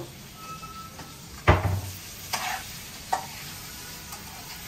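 Boiled potatoes frying in spiced oil in a pan: a steady sizzle as they are stirred. There is one loud knock about one and a half seconds in, followed by a few lighter clinks.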